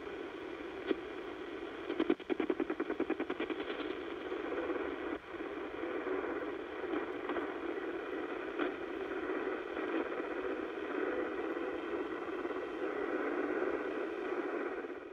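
Shortwave receiver hiss and static on the 10 MHz time-signal frequency, with the WWVH time station barely audible under the noise because the daylight path is too long in sunlight. A fast run of clicks comes about two seconds in as the dial is turned up to 10 MHz.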